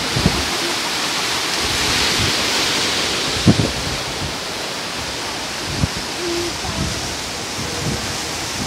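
Sea surf washing over shoreline rocks, a steady rushing of breaking waves, with a few low thumps of wind on the microphone and a brief low hooting tone about six seconds in.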